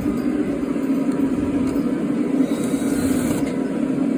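A steady low mechanical hum, like a motor running, holding an even pitch throughout.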